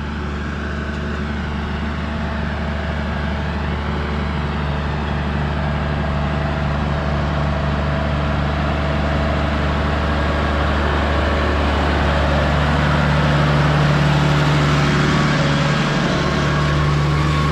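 Diesel tractor engine running steadily, growing gradually louder toward a peak about three-quarters of the way through.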